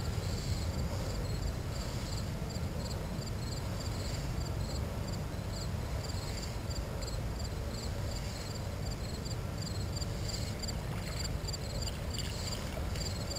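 Insects chirping in a fast, regular rhythm, high-pitched and even, over a low steady rumble.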